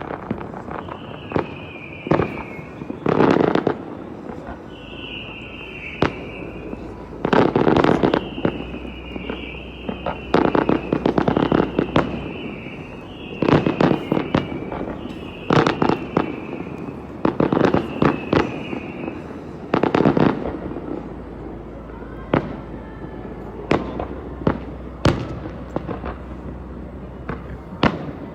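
Fireworks display: aerial shells bursting with deep booms and crackle, thick and frequent for most of the stretch, then thinning to sharper, scattered pops near the end. A short high falling whistle repeats every couple of seconds through the busy part.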